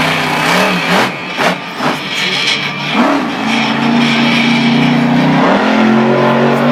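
Monster truck's supercharged V8 engine revving hard. Its pitch rises about three seconds in and stays high, and there are several sharp bangs in the first half.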